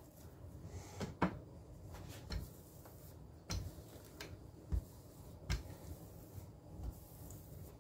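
A rolling pin is worked back and forth over oiled focaccia dough on a hard countertop, giving a series of short, irregularly spaced knocks as it bumps and shifts on the counter.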